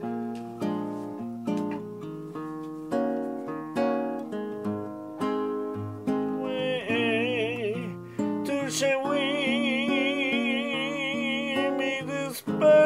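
Nylon-string classical guitar played fingerstyle, plucked notes and chords. About halfway through, a singing voice joins over it, holding long notes with wide vibrato.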